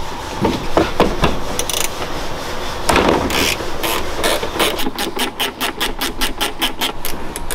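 Ratcheting wrench clicking on a hinge bolt being loosened: a few scattered clicks and knocks at first, then from a little past halfway a quick, even run of about six clicks a second.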